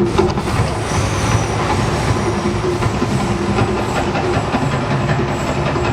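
Mirage volcano show erupting: a loud, steady, dense rumbling roar.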